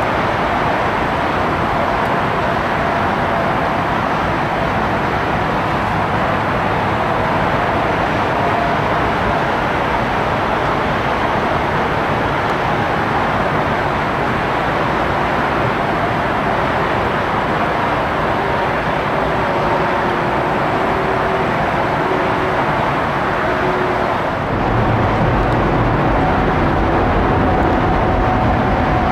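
Airliner jet engines running, a loud steady roar with a faint high whine; near the end the deep rumble grows stronger.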